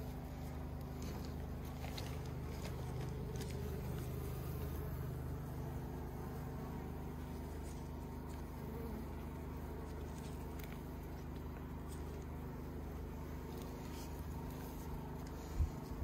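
Wild honeybee colony buzzing steadily around its combs as they are lifted out of a rock crevice, with a few faint clicks of the comb being handled.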